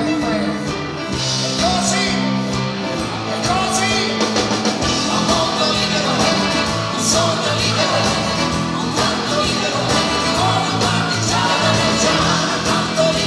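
A male lead singer singing with a live rock band, loud and steady throughout.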